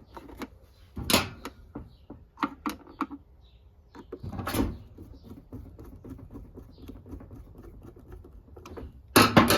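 Small clicks and scratchy scrapes of a screwdriver and plastic parts being handled as a Phillips screw is driven in to fasten a plastic knob, with a louder handling noise near the end.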